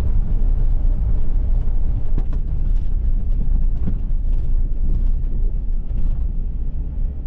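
Pickup truck driving down a rough dirt road: a steady low rumble of engine and tyres, with scattered knocks and rattles over the bumps.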